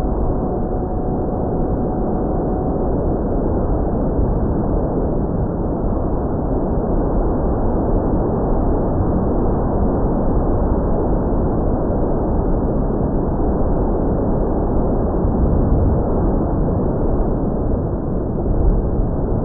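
Steady, loud rushing wind noise on the microphone during the RC plane's flight. A faint steady tone fades out about three seconds in.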